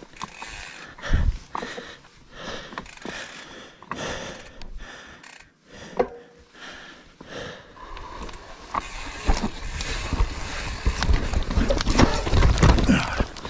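Mountain bike clattering down a rooty dirt trail: tyres over roots and loose ground, with rattling and sharp knocks from the chain and frame. From about two-thirds of the way in the noise grows denser and heavier, and the bike goes down in a crash near the end.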